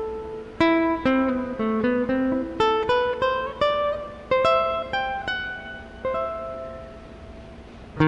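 Background music: a guitar picking single notes in an unhurried melody, each note ringing and fading, the last one left to die away near the end.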